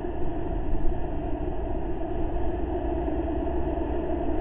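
Steady rumbling background noise picked up by an outdoor webcam microphone, with a low rumble and a faint hum underneath and no distinct events.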